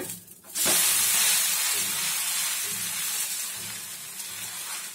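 A chicken-keema-topped kari dosa flipped face down onto a hot tava: the topping hits the pan about half a second in and sizzles loudly, the hiss then slowly easing off.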